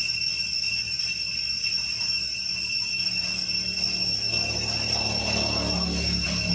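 A steady, high-pitched drone of forest insects, with a low rumble building from about halfway through.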